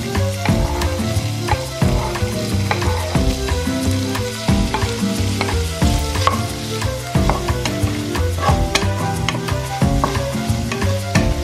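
Diced pork sizzling in hot oil in a nonstick frying pan, stirred with a wooden spatula that taps and scrapes against the pan many times.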